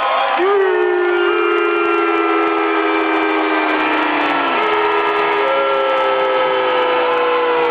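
Several long, overlapping horn blasts, each held for seconds and sagging slightly in pitch, over the din of an arena crowd. The lowest blast slides down and stops about four and a half seconds in, and a higher one starts a second later.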